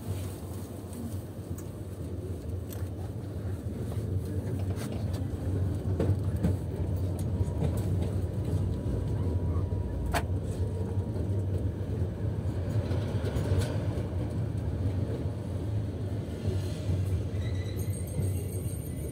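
Tram running along the track, heard from inside the driver's cab: a steady low rumble that grows louder over the first few seconds. Scattered clicks and knocks from the running gear, with one sharp click about ten seconds in.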